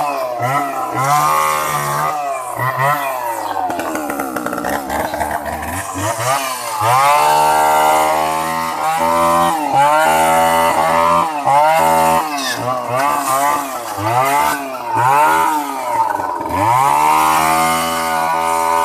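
Echo 452VL two-stroke chainsaw revving up and down again and again as it cuts into dry branches, its pitch rising and falling many times. The engine runs well, but the chain is worn and a little dull.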